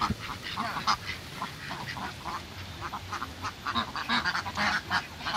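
A flock of domestic ducks quacking, many short quacks overlapping without a break.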